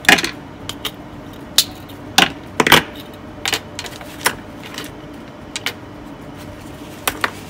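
Irregular light clicks and taps as a thin metal eyeglass frame and small hand tools are handled on a workbench, over a faint steady hum.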